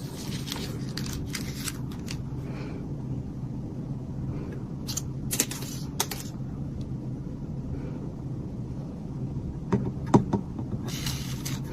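A steady low hum with scattered light clicks and knocks and a few brief rustles.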